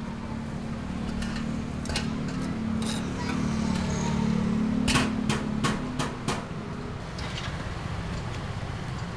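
Metal tongs clicking against stainless steel food trays: sharp clicks a couple of times, then a quick run of five about five seconds in, over a steady low hum of street traffic.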